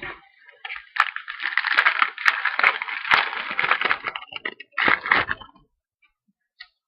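Trading card pack wrapper crinkling and tearing as a pack is opened, with a few sharp clicks, in a run of about three seconds and a shorter burst near the end.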